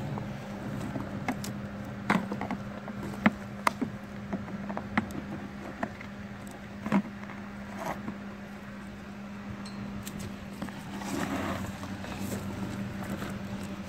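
Scattered sharp clicks and snaps of plastic retaining clips on a truck's A/C evaporator housing being pried loose with a screwdriver, over a steady low hum. Plastic rustles and scrapes near the end as the housing is worked free.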